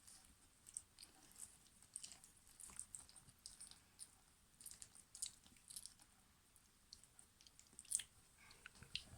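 German Pinscher puppies chewing: faint, irregular small clicks and crunches, with a louder one about eight seconds in.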